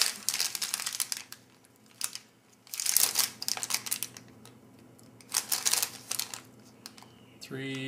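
Crinkling of a peanut M&M's candy wrapper being handled and turned over in the hands, in three short bursts with quiet between.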